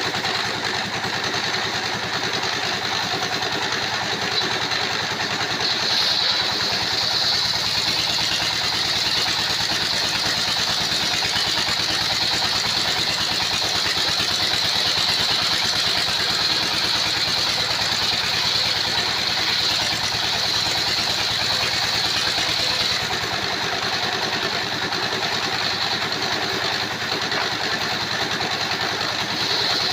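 Sawmill circular saw machine running steadily on its drive engine. A higher, brighter whine sets in about six seconds in, eases after about twenty-three seconds and rises again near the end, as the blade works through the wood.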